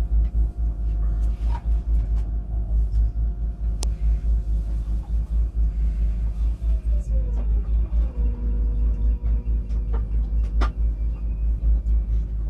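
Interior of an ICE 3 high-speed train at speed: a steady low rumble with a thin electric whine from the traction motors. About seven seconds in, the whine glides down in pitch and then holds steady at the lower note. A few sharp clicks come through, one about four seconds in.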